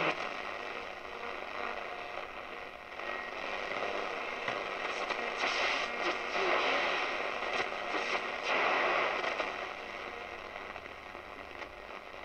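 Schaub-Lorenz Goldy 58 tube radio's loudspeaker giving shortwave static, hiss and crackle that swells and fades as the dial is tuned slowly across a band with little reception.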